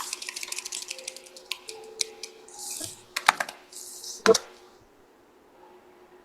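Typing on a computer keyboard: a quick run of key clicks, then scattered louder clicks with a couple of short hisses, stopping after about four and a half seconds.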